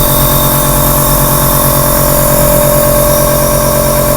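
Dr Trust compressor nebulizer running: its electric air compressor gives a steady, loud hum with one constant whining note, driving air through the medicine cup to make mist.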